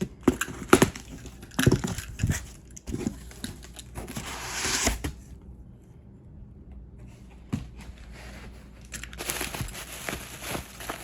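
Packaging being handled and opened by hand, crinkling and tearing. There are several sharp knocks and crackles in the first three seconds, a rustle about four to five seconds in, and more rustling from about nine seconds on.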